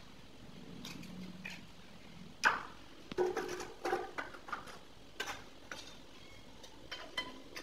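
Irregular knocks and clinks of hard tiling and drain parts being handled and set down, with one sharp knock about two and a half seconds in and a quick cluster just after.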